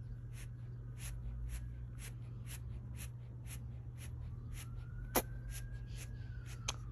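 Steady ticking about twice a second over a low hum, with two louder clicks near the end and a faint tone slowly rising and falling in pitch in the background.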